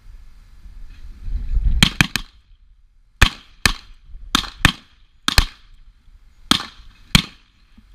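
A string of handgun shots at targets, fired in quick pairs and singles over about five seconds, starting near two seconds in.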